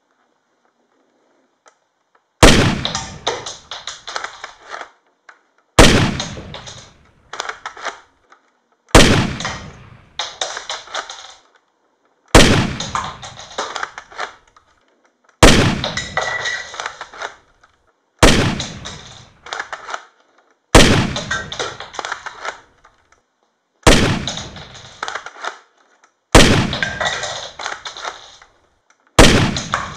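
A LEGO brick model of an AA-12 shotgun firing: ten loud, sharp shots about every three seconds. Each shot is followed by a couple of seconds of fading clatter and small clicks.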